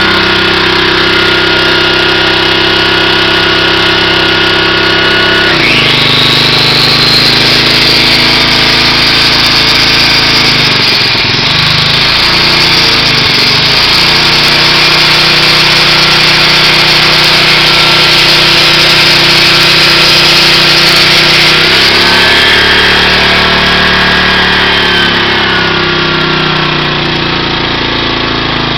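Small Honda generator engine running steadily on a homemade bubbler vapor carburetor. About six seconds in, an electric angle grinder starts with a high steady whine, and the engine's pitch wavers briefly a few seconds later. The grinder is switched off about two-thirds of the way through and winds down over a few seconds while the engine keeps running.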